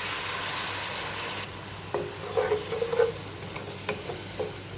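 Hot oil and fried spice masala sizzling loudly as a little water is added; the hiss dies down after about a second and a half. Then a spoon stirs and scrapes in the pot with a few clicks.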